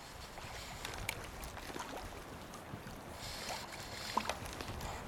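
Rippling river current and wind buffeting the microphone, a steady rushing with a low rumble, dotted with small splashes and clicks.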